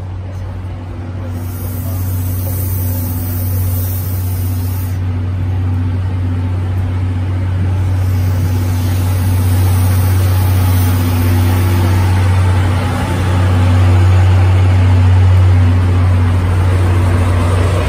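Train of passenger coaches rolling slowly past, with the steady low drone of a DE10 diesel locomotive's engine that grows louder as the locomotive comes level near the end.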